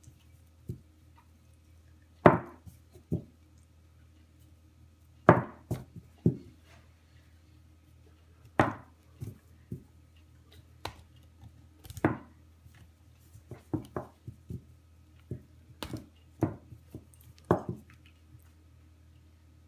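A small phone stand repeatedly knocked over onto a tabletop by a kitten's paw and set back up by hand: about a dozen sharp, irregular clacks and taps, some in quick pairs, over a faint steady hum.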